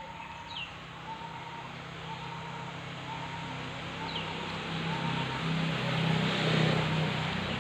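Outdoor rural ambience: a steady noisy hiss that swells toward the end, with two short falling bird chirps, one about half a second in and one about four seconds in.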